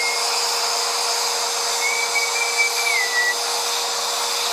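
Vacuum cleaner running steadily, a constant hum under a loud airy hiss. A thin high whistle comes in about two seconds in, wavers and drops in pitch, then fades.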